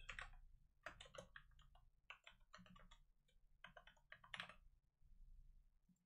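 Faint typing on a computer keyboard: quick, irregular key clicks in short runs.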